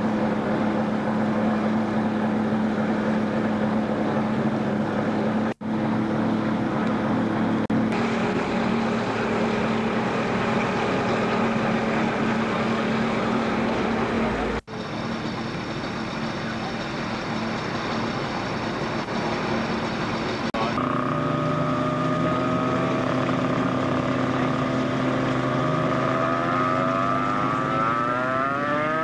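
Formula 3 racing car engines running with a steady drone, the sound dropping out briefly twice. Near the end the pitch climbs in several rising sweeps as an engine is revved.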